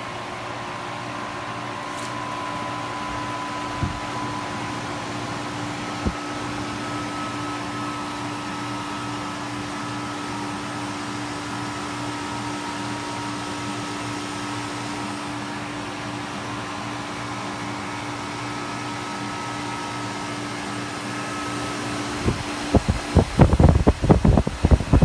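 HVAC system's blower running at startup: a steady fan hum with a few held whining tones, and two light clicks early in. Near the end, loud irregular low rumbling bursts break in.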